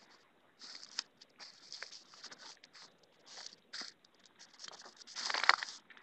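Footsteps crunching and rustling through dry leaf litter and wood debris: irregular steps with small twig cracks, louder near the end.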